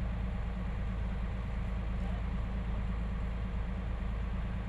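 A large engine running steadily at low revs, an even low rumble.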